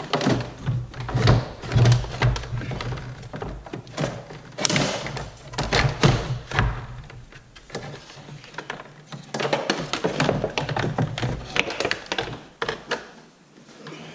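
Plastic fan shroud and cooling fan from a 6.7 Cummins being wrestled up and out past the radiator: repeated irregular knocks, clunks and scraping of plastic against the radiator and engine parts, dying down near the end.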